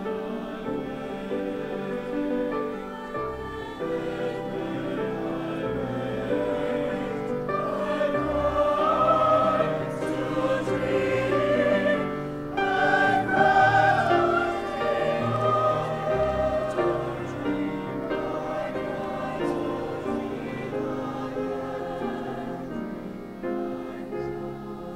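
Mixed choir singing a classical choral piece in harmony, the voices swelling to their loudest about halfway through, then growing softer.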